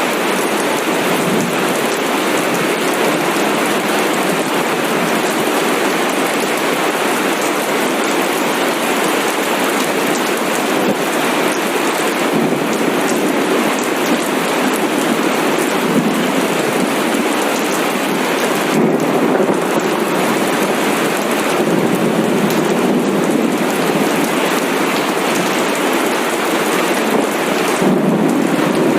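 Steady heavy rain, with low rolls of thunder swelling up now and then.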